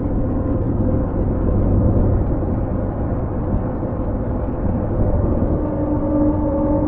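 Meteor hydrofoil running at speed on its foils: a steady low rumble of engines and rushing water.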